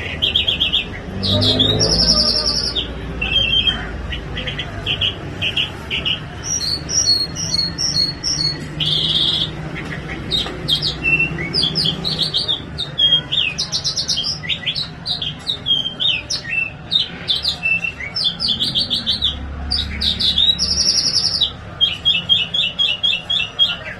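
A songbird singing a long, varied song of quick chirps, fast repeated notes and trills.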